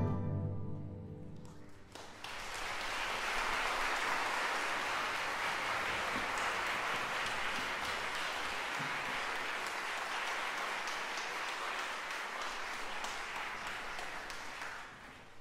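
The Chinese instrumental ensemble's final chord dies away in the hall's reverberation, then audience applause starts about two seconds in, holds steady, and fades out near the end.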